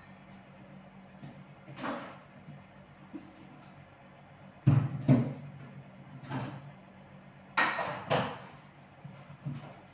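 Kitchen clatter: scattered knocks and bumps of items being handled and set down on a counter. The loudest are a pair about five seconds in and another pair around eight seconds. A low steady hum runs underneath.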